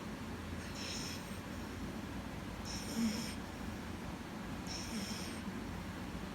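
Snoring in deep sleep: a short hissing, slightly whistling breath about every two seconds, three times.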